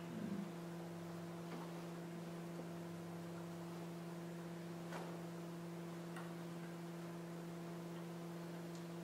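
Steady electrical mains hum from the sound system, with a brief soft low bump just at the start and a few faint scattered clicks.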